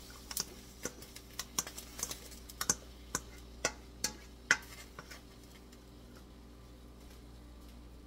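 Metal kitchen utensils clicking and knocking against a cooking pot as drained black beans and corn are tipped into the soup: about fifteen quick, sharp taps that stop about five seconds in.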